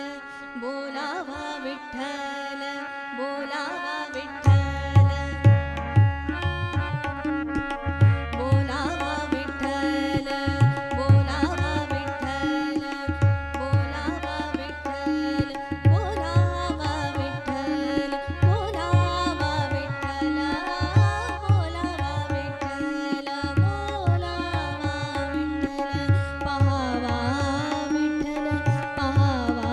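A woman singing a Marathi devotional abhang to harmonium accompaniment, the harmonium holding steady chords under her voice. Tabla comes in about four seconds in and keeps a steady rhythm, with deep bass strokes from the bayan and sharp strokes from the dayan.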